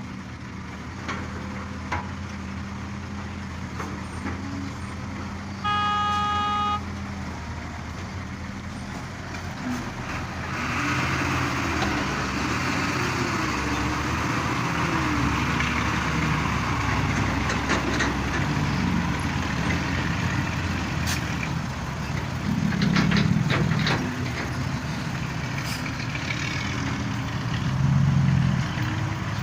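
Heavy diesel machinery of excavator-and-dump-truck loading, running steadily. A horn sounds once for about a second around six seconds in. From about ten seconds in the engine works harder and louder, with scattered clanks, and it swells twice near the end.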